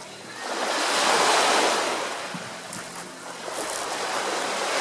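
Sea waves washing in, swelling about a second in and again near the end.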